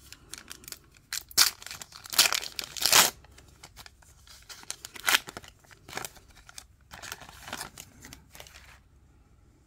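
A foil Match Attax trading-card pack being torn open and crinkled by hand: a series of rips and crackles, loudest about two to three seconds in, dying away near the end.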